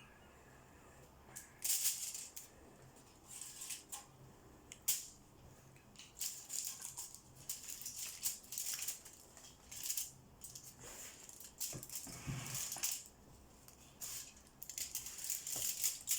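Irregular short rustles, scrapes and rattles from handling cookie dough and sweets on a baking pan, with one or two sharp clicks among them.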